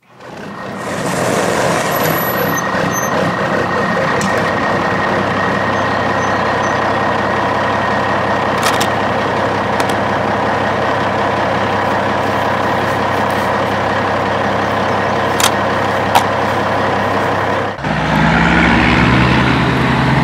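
Large truck engine running steadily, with a few brief sharp clicks. Music begins near the end.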